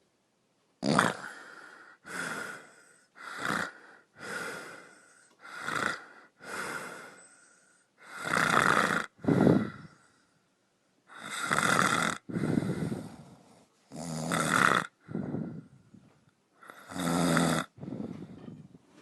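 Snoring sounds: short rasping snores repeated about every one to two seconds, with dead silence between them. This is a snoring-frequency sound meant to be played at a snorer's ear to mask the snoring.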